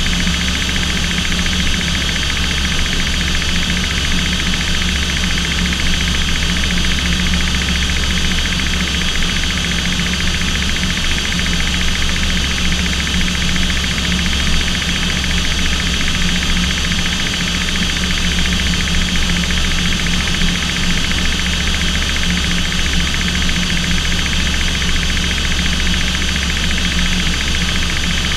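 Aircraft engines and airflow heard from inside the cockpit in level flight: a loud, steady drone with a constant low hum that does not change.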